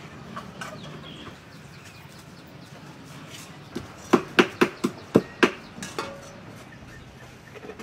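A quick run of about nine sharp knocks or clicks over two seconds, starting about halfway through.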